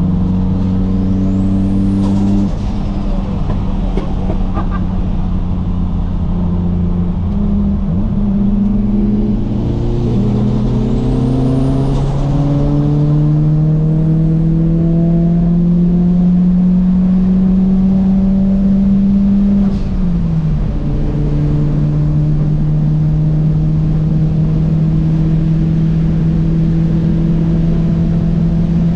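Nissan Silvia PS13's engine heard from inside the cabin while cruising on a highway: a steady drone whose note climbs slowly through the middle under light acceleration, drops about twenty seconds in, then holds level. Twice a brief higher hiss swells and fades over it.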